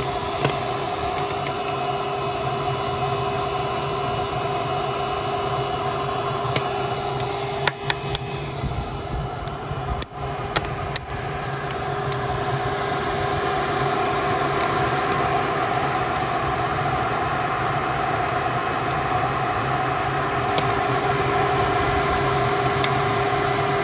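Stirling engine running steadily just after starting, turning its belt-driven generator, with its cooling pump and radiator fan running alongside. It makes a steady machine hum, with a few knocks about eight to eleven seconds in.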